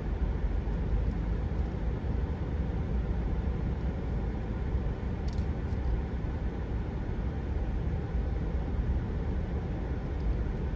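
Steady road and engine noise of a vehicle driving slowly, heard from inside the cabin.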